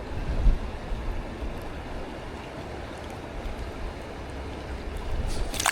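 River water running and lapping, with some low wind rumble on the microphone early on. Near the end there is a short burst of sharp clatter.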